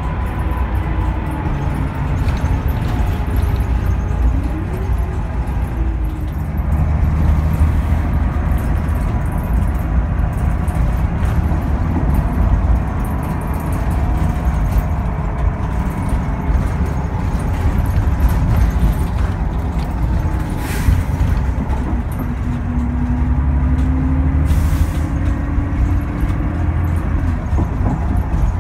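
Interior running noise of a NABI 42-BRT bus under way: the Cummins Westport ISL G natural-gas engine and Allison B400R transmission drone low and steady with road noise, their pitch gliding up and down as the bus speeds up and slows. Two short hisses of air come about two-thirds of the way through.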